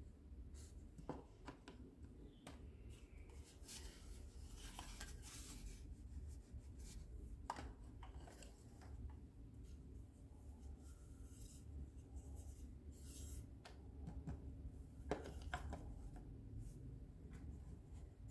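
Hard plastic toy doctor-set pieces being handled and set down on a plastic playset: scattered light clicks and taps with short rubbing scrapes, over a faint steady low hum.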